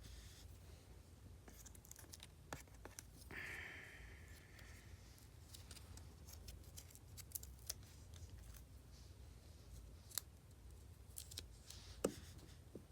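Faint handling noises while applying nail polish strips: scattered small clicks and taps, a short hissing scrape about three seconds in, and the sharpest tap near the end.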